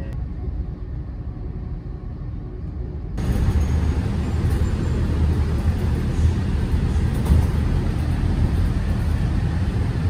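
Low steady rumble of a train running, heard from inside the carriage. About three seconds in it cuts abruptly to louder ride noise inside a bus: engine rumble and road hiss.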